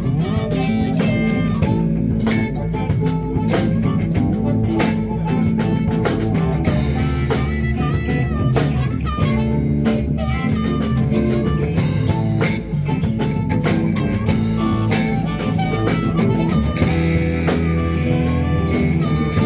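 Live blues band playing: electric guitar lines over bass and a drum kit keeping a steady beat.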